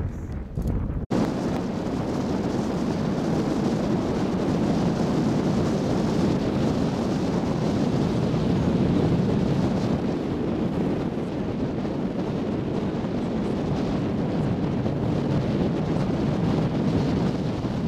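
Wind buffeting the microphone, over the steady rush of a tour boat under way on open water. There is a brief dropout with a sharp break about a second in.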